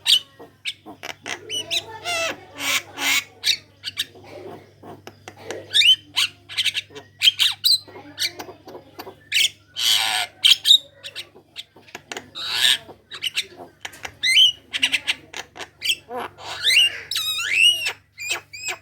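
Javan myna singing vigorously: a fast, varied run of harsh squawks, rasps and clicks, with looping whistled notes near the end. A faint steady low hum runs underneath.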